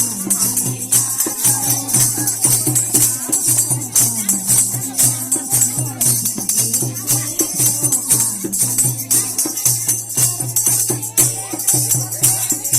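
Bhajan kirtan music: continuous jingling hand percussion over a fast, steady drum beat.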